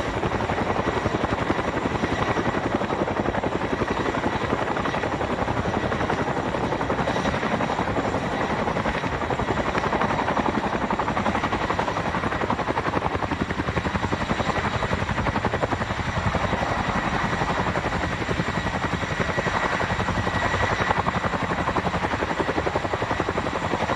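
Boeing Chinook tandem-rotor helicopter hovering with a heavy underslung load: a steady, rapid beat of rotor blades, with a faint high whine running under it.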